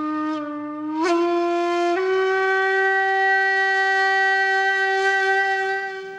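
Logo intro sting: a horn-like wind-instrument tone in three rising steps, the last note held about four seconds before fading out near the end.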